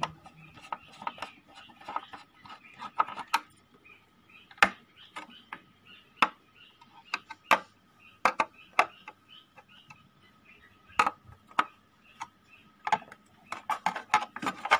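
Irregular sharp clicks and metallic scrapes of a screwdriver working screws on an audio amplifier's USB/Bluetooth module and chassis, with a faint steady high tone behind.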